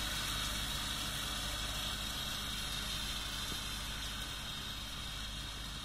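Tractor engine running steadily while driving a rotary mower through an alfalfa field, slowly fading as the tractor moves away.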